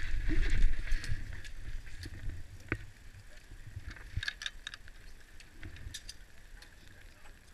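Wind and movement rumble on a helmet-mounted camera, loudest in the first second and then easing off, with scattered light clicks and taps.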